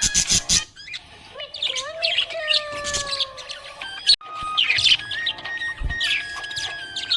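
Parrots chirping and tweeting in quick repeated calls, with a few gliding whistles, over background music of held notes.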